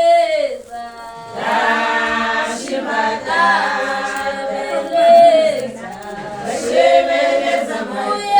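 A group of voices singing without instruments, in long held notes that slide in pitch.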